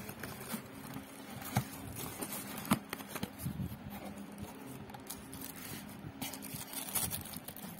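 A cardboard product box being handled and opened, with scattered scrapes, rustles and light taps of cardboard and plastic wrapping over a faint steady low hum.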